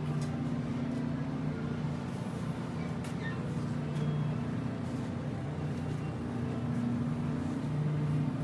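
Steady low hum of supermarket refrigerated display cases, with a few faint clicks.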